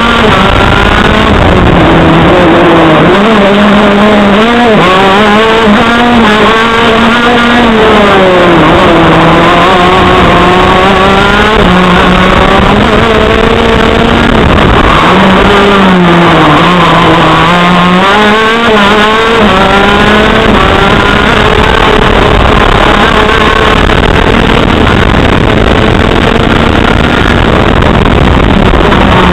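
A TM KZ10C 125 cc single-cylinder two-stroke shifter kart engine running at high revs, close up and loud. Its pitch climbs repeatedly through the gears and dips several times as it slows for corners.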